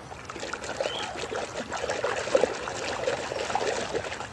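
Water splashing and dribbling as a small plastic toy car is scrubbed and rinsed by hand, in an irregular run of small splashes and drips.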